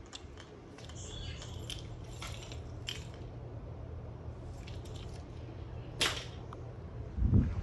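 Steady low hum of an electric fan, with scattered small clicks, one sharper click about six seconds in and a low thump near the end.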